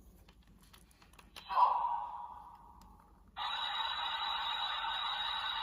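Ultraman Decker transformation-sword toy handled with a few light plastic clicks, then its speaker gives a short electronic chime that fades away. About three and a half seconds in, a steady electronic sound effect starts and holds at an even level.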